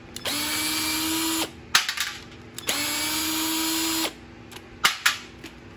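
Cordless drill-driver with a 7 mm socket bit running twice, about a second and a half each time, backing screws out of a small-engine lawnmower carburetor to open it up, with sharp clicks of the bit and screws in between.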